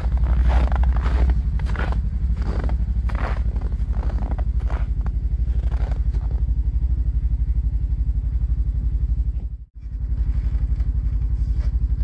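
An engine idling with a steady low throb. Footsteps crunch in the snow over the first half. The sound drops out for an instant near the end.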